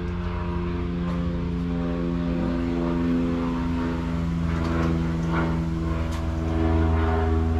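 A steady drone of several held tones over a deep low hum, the tones shifting in pitch a few times, with a few light clicks.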